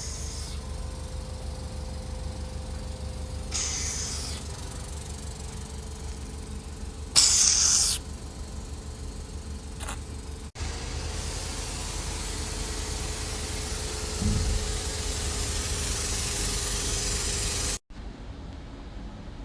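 Hydrofacial machine running with a steady low hum. Short hissing bursts of spray come twice, the second one loud, and then a long steady hiss lasts several seconds and cuts off abruptly.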